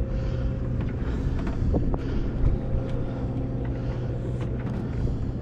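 Steady low hum of the sportfishing boat's machinery, with wind on the microphone and a few faint clicks.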